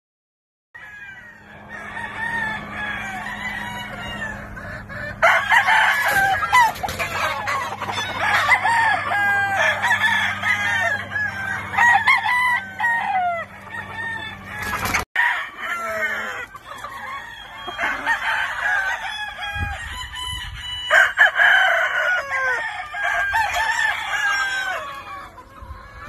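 A flock of gamefowl chickens calling over one another: clucking from pullets and hens, with roosters crowing, in a busy overlapping chorus. A steady low hum runs under the first half, and the sound breaks off for an instant about halfway through.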